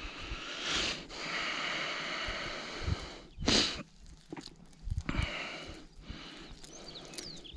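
Close handling noise as hands work a small fish free of a tangled gillnet's wet mesh, mixed with a person's breathing and a short sharp sniff about three and a half seconds in.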